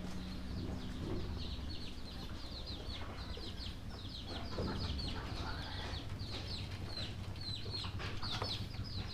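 Chickens with many high, short peeping chirps overlapping without pause, over a steady low hum.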